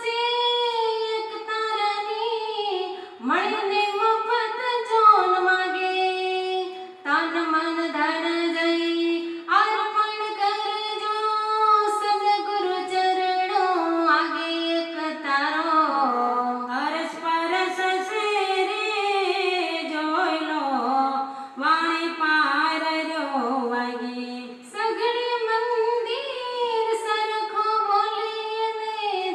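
Women singing a Gujarati devotional bhajan into microphones as one melody line with long, sliding held notes, and no drum or instrument heard.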